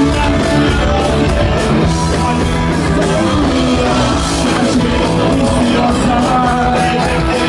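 Loud rock music with singing and guitar, typical of punk rock.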